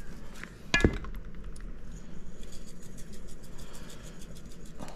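A glass spice jar clinks once against a hard surface about a second in, with a short ringing note. Then comes faint, rapid light ticking as seasoning is shaken out of the jar.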